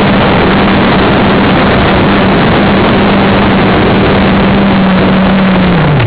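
Quadcopter's electric motors and propellers heard from its onboard camera: a loud, steady buzzing hum. At the very end the pitch slides down and the sound dies away as the motors spin down on landing.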